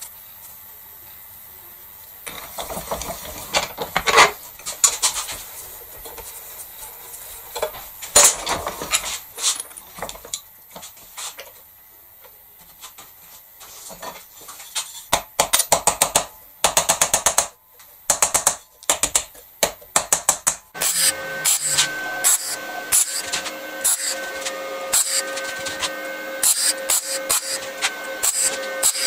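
Steel parts handled and tapped with sharp clicks and knocks, then, from about two-thirds of the way in, a stick arc welder crackling and hissing steadily as a screw is welded onto the end of a steel tube.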